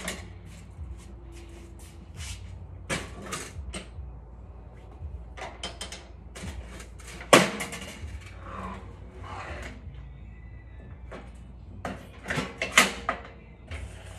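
Folding cart of a Weber Traveler portable gas grill being tipped down and raised into its cooking position: a series of metal clanks, clicks and rattles from its frame and latches, with one sharp knock a little past halfway and a cluster of clanks near the end.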